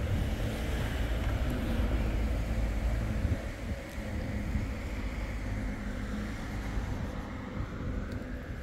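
City street traffic, a vehicle rumbling past close by, loudest in the first three and a half seconds and then easing.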